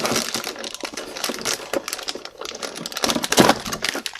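Box contents and packaging being handled: paper and packaging rustling and crinkling in a dense run of small crackles and clicks, with a louder crinkle about three and a half seconds in.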